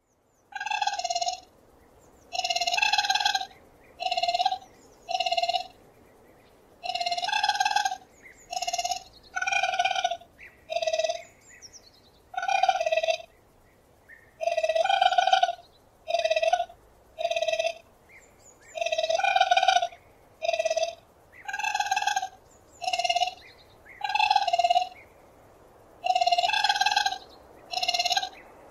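Raccoon calling: a string of short, high chirping calls, about one a second with uneven gaps, each lasting a fraction of a second to about a second.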